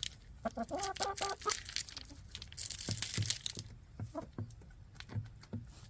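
Hens clucking, then pecking and scratching at grit on the ground: a rustle, then a run of quick ticks and taps.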